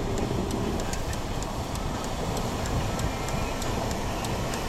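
Steady low rumble of a running vehicle, with faint, regular light ticking of about three ticks a second.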